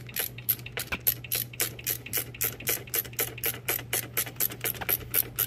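Ratchet wrench clicking quickly and evenly, about five clicks a second, as it runs in the pinch bolt on the steering shaft joint.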